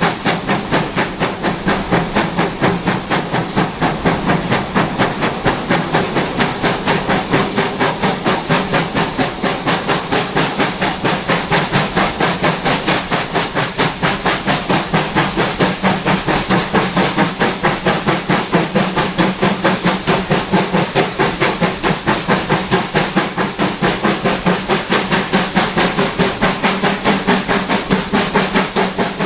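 Exhaust beats of GWR Manor class 4-6-0 steam locomotive 7822 Foxcote Manor, working steadily under load up the bank toward Crowcombe Heathfield, heard from the train behind. A fast, even rhythm of chuffs over a constant steam hiss.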